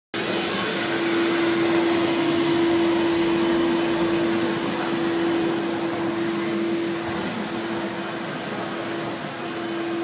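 RA 660 NAVI robotic floor scrubber-dryer running as it drives across a tile floor: a steady motor and suction hum, carrying one constant tone over an even whoosh.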